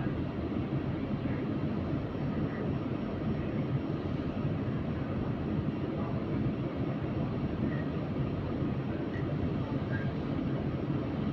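Go-Ahead London SEe200 bus running along the road: a steady rumble of road and running noise, with a few faint short chirps.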